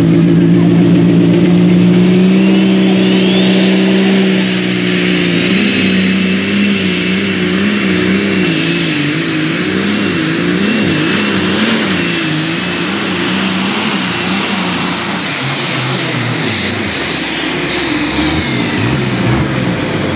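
International light super stock pulling tractor at full throttle under load. A high turbo whistle climbs over the first few seconds, holds, and falls away near the end, while the engine note wavers up and down through the middle of the pull.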